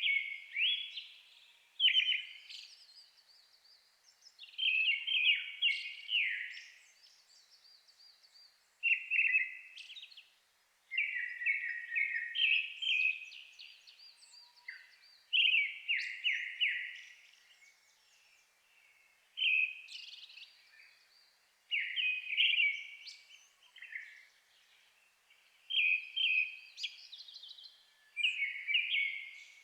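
Brown-headed thrush singing: short phrases of a few clear whistled notes, each ending in a thin, higher trill, repeated every two to three seconds.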